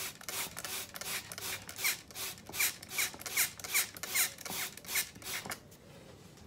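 Hand trigger spray bottle squirting water onto potting soil in a quick, even series of hissing sprays, about two and a half a second, that stop about five and a half seconds in.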